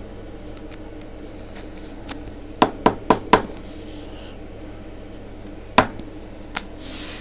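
Trading cards and plastic card holders being handled on a table: four quick sharp clicks about two and a half seconds in, a single louder click near six seconds, then a short rustle.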